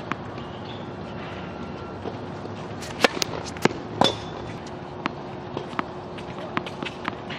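Tennis practice on a hard court: a sharp racket-on-ball hit about three seconds in, with another loud crack about a second later, then lighter taps of a tennis ball being bounced on the court. A faint steady hum runs underneath.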